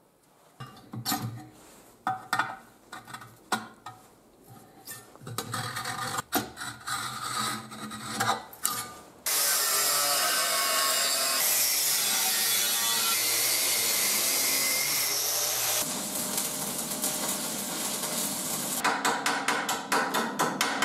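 Knocks and scrapes of the grinder rig being handled, then about nine seconds in a loud, steady grinding noise starts abruptly: an angle grinder on a homemade stand, its disc working a piece. It shifts slightly partway through and turns choppy near the end.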